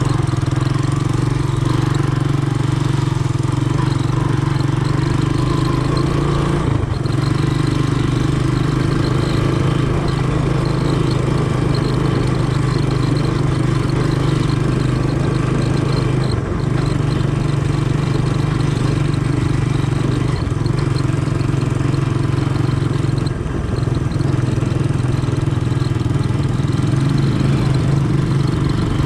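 Honda ATC 200M three-wheeler's single-cylinder four-stroke engine running steadily, with three brief dips in the sound along the way.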